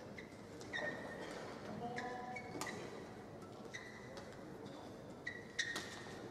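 Court shoes squeaking on the synthetic badminton court mat: about half a dozen short, high squeaks, with two sharp clicks, one near the middle and a louder one near the end, over a steady hall murmur.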